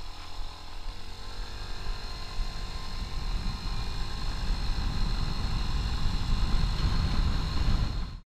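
Piaggio Medley 125 scooter's single-cylinder engine accelerating hard from a standstill to 50 km/h, its pitch rising over the first couple of seconds. Wind rumble on the microphone grows louder as speed builds, and the sound cuts off suddenly near the end.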